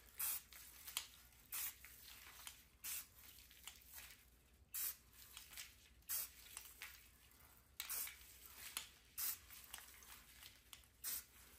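Aerosol can of brown spray paint hissing in short bursts, about one a second, spraying through a handful of dry grass held over a rifle as a camouflage stencil.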